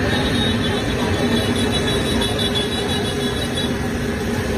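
Egg-and-milk malpua batter deep-frying in a wide pan of hot oil: a steady sizzle.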